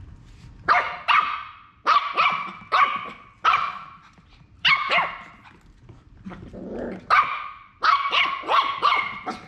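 Nine-week-old rat terrier puppy barking at an unfamiliar can on the floor: a string of high-pitched, yappy barks, mostly in quick pairs and clusters. A short low growl comes about six seconds in.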